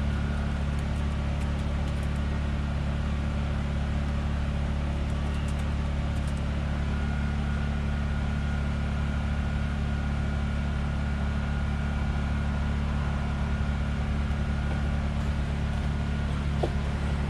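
Mercedes Sprinter van's engine idling steadily with a low, even hum.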